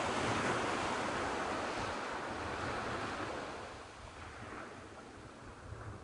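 Small sea waves breaking and washing up a sandy beach: a hissing surge of surf, loudest at the start and dying away after about three and a half seconds. Wind rumbles on the microphone underneath.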